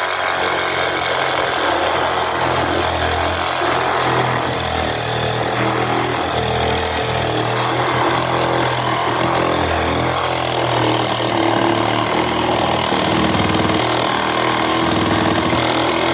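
Bauer 20-volt cordless lithium reciprocating saw, fitted with a wood-and-nail blade, running steadily as it cuts through a wooden board.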